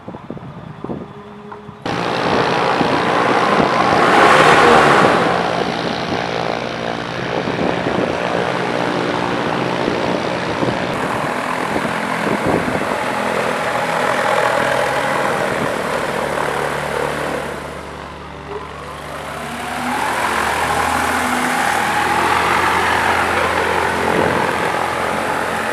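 Pipistrel Alpha Electro's electric motor and propeller running as the aircraft taxis: a loud, steady whir with humming tones, strongest about four seconds in. It eases off around eighteen seconds and then builds again, its tones rising in pitch.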